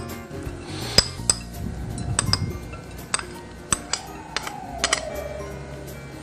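Metal spoon clinking and scraping against bowls as cooked split yellow peas are spooned into a glass mixing bowl, a string of irregular sharp clinks. Soft background music underneath.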